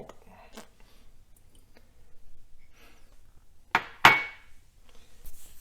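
Kitchen utensils and containers being handled: faint small clicks, then two sharp knocks close together about four seconds in, the second louder with a short ringing clink, as of glass or metal struck on a hard surface.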